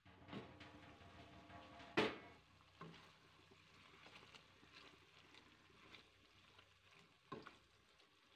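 A glass pot lid is lifted off with a clink and a brief ring, and there is a sharp knock about two seconds in. Then a wooden spoon stirs thick curry in a nonstick pot, with soft scrapes and light taps and one more knock near the end.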